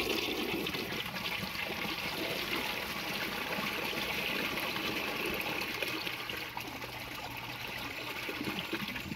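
Kohler toilet with an Aquapiston canister flush valve flushing, the handle held down to keep the valve open: a steady rush of water swirling through the bowl that eases a little near the end.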